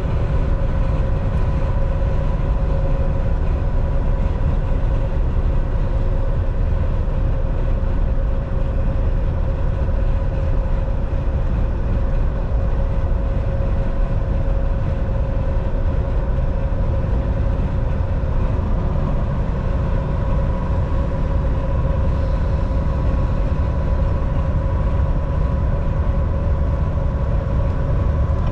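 Inside a Volvo semi truck's cab at highway speed: the diesel engine and tyres make a steady low drone, with a steady hum running through it.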